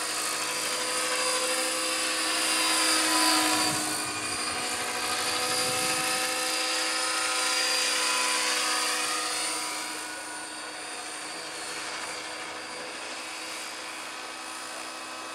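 Radio-controlled scale Bell LongRanger helicopter built on a T-Rex 600, flying: a steady rotor and drivetrain whine. It is loudest about three seconds in and grows quieter after about ten seconds as the model flies farther away.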